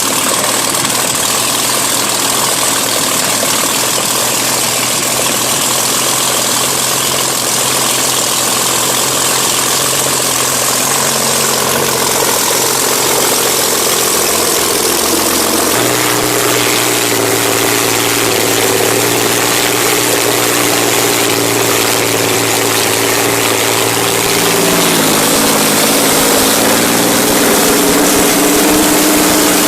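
A large engine running steadily, its note changing pitch about halfway through and again near the end.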